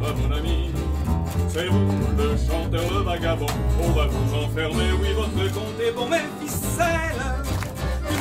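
Acoustic guitar and upright double bass playing a folk tune together, the bass walking through low notes under a wavering melody line.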